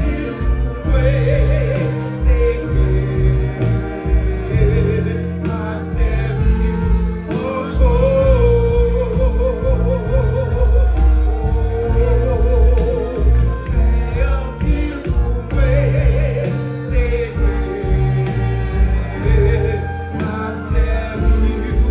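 Live gospel song: singing with vibrato over loud, steady bass and instrumental accompaniment.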